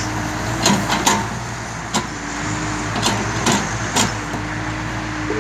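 Hitachi ZX48U-5 mini excavator's diesel engine running under load while it digs, with a whine that comes and goes and about six sharp clanks from the bucket and boom.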